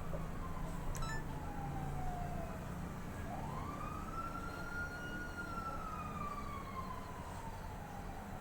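A wailing siren: one tone sliding slowly down, then sweeping up and falling slowly again over several seconds, over a steady low rumble.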